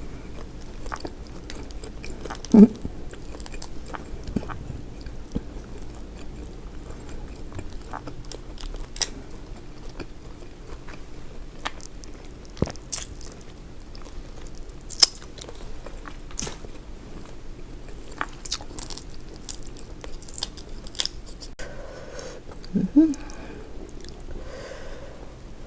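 Close-up eating sounds of a seafood boil: chewing and biting with scattered sharp clicks and crunches. Two short, louder pitched sounds come through, one near the start and one near the end.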